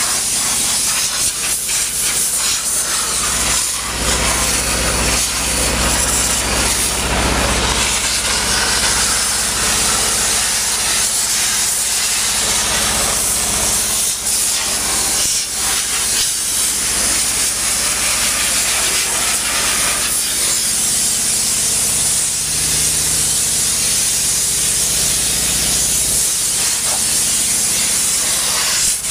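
Compressed-air blow gun with a long wand blasting chaff and dust out of a round baler's pickup and rotor cutter: a continuous loud air hiss that wavers as the nozzle moves, over a steady low hum.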